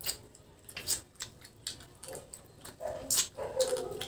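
Close-up eating sounds: wet chewing and lip-smacking clicks as boiled pork leg is eaten by hand. A drawn-out whine-like tone comes in during the second half and is the loudest sound.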